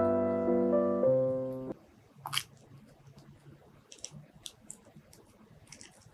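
Piano music that cuts off suddenly under two seconds in, then a mini durian's husk being pried open by hand: one sharper crack, followed by a few faint clicks and crackles as the segments separate.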